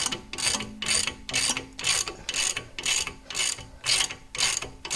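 Hand ratchet with a 14 mm socket clicking in quick, even strokes, about two or three a second, as it is swung back and forth to spin off the nut of the front lower ball joint pinch bolt.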